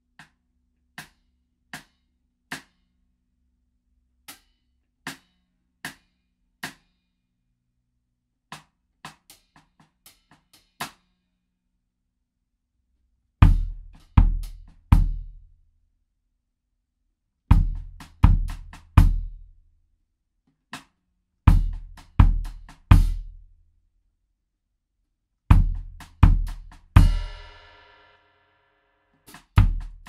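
Improvised drumming on a drum kit: sparse, irregular sharp ticks for the first ten seconds or so, then heavy low drum hits in groups of three, a set about every four seconds, with one ringing crash near the end.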